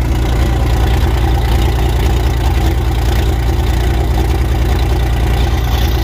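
Claas combine harvester's diesel engine running steadily just after starting, a deep, even drone.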